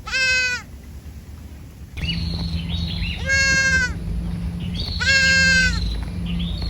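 Three short, high-pitched bleats from a young farm animal, each falling a little in pitch, about one and a half to three seconds apart. From about two seconds in, a steady low hum and faint high chirping sit underneath.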